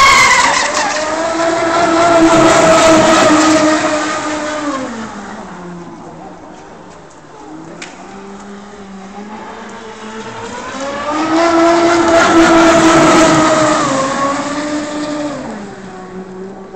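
Electric RC racing catamaran running at speed: the high-pitched whine of its E-MAX brushless outrunner motor and propeller. It swells loud twice as the boat passes, about ten seconds apart. The pitch drops as each pass fades and climbs again as the next one builds.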